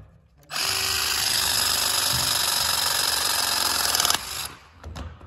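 REMS 22V cordless pipe press tool running through one press cycle, its jaw closing a press fitting onto copper pipe. The motor starts about half a second in, runs steadily for about three and a half seconds, then stops sharply.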